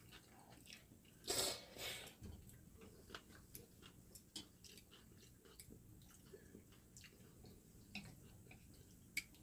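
Kimchi bibim noodles being eaten: two short, hissing slurps about a second in, then faint chewing and scattered small clicks.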